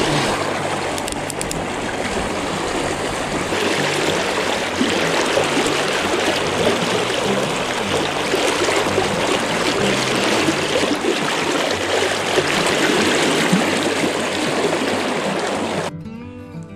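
Fast, strong river current rushing and splashing close to the microphone. It cuts off abruptly near the end, giving way to music.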